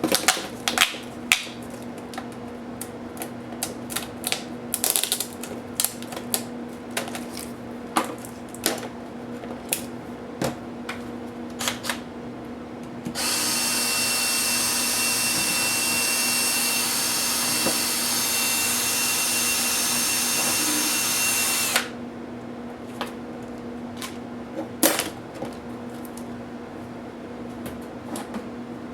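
Sharp clicks and taps of small plastic and metal parts being handled and pried apart during a laptop teardown. In the middle comes about eight seconds of loud, steady noise with a faint high tone, which then cuts off.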